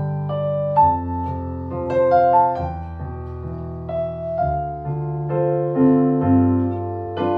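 Slow piano music: chords changing about every second over held bass notes.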